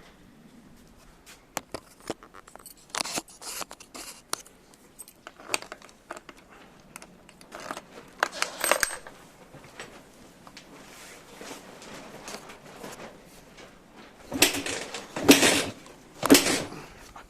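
Handling noises: scattered light clicks and clinks with short scraping rustles, then three louder scraping rustles near the end.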